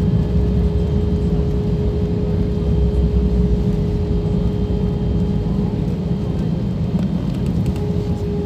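Airliner cabin noise during the landing roll: a steady rumble from the engines and the wheels on the runway as the plane slows with its spoilers up, with a steady hum running through it.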